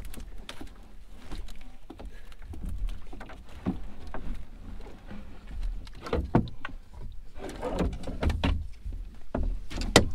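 Irregular knocks, bumps and scuffs against a loaded canoe's hull and gunwales as a person climbs in over the packs and settles into the bow seat. The knocks grow louder and closer together in the second half, and a paddle stroke starts near the end.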